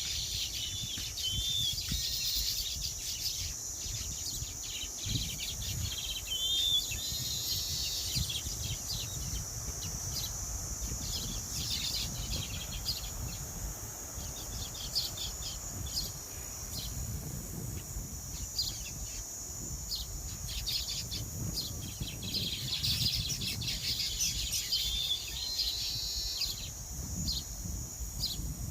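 Small birds chirping in short, repeated notes, with a few curling calls, over a steady high-pitched insect drone. A low rumble underneath is wind on the microphone.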